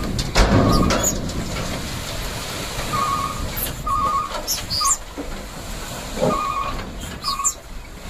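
Hino Ranger dump truck tipping its load, its engine running. A warbling electronic beep sounds in about seven short bursts over the running noise, with a few sharp hissing bursts; the loudest comes about half a second in.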